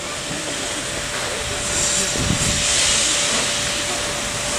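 Steam hissing from the LNER Peppercorn A1 Pacific no. 60163 Tornado as it moves off: a steady hiss that swells slightly about halfway through.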